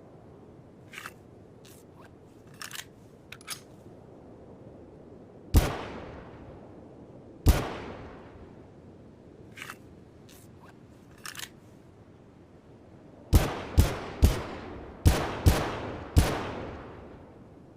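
Desert Eagle pistol shots, each a sharp report with a long echoing tail: two single shots about two seconds apart, then six more fired in quick succession near the end. Quieter short clicks come before and between the shots.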